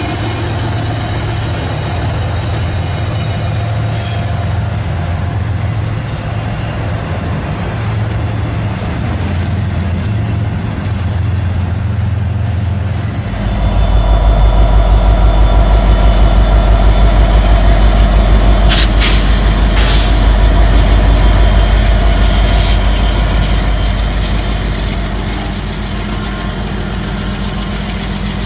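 Diesel locomotive engine sound with a steady low hum. About halfway in it changes abruptly to a louder, deeper throbbing rumble as locomotives pass, with a few short hisses in the middle of that part.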